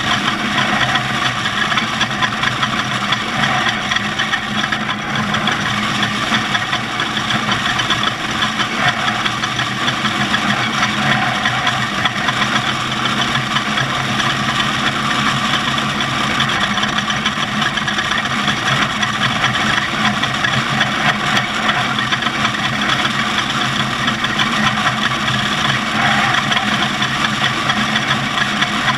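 Off-road race vehicle's engine running at a steady speed, under a steady rushing noise.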